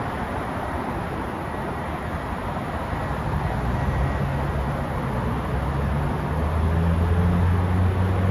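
Steady outdoor traffic noise, with a low hum that comes in about halfway and grows louder toward the end.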